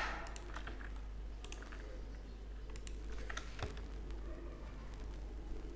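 Computer keyboard keys pressed one at a time, a dozen or so short clicks at irregular intervals, over a low steady hum.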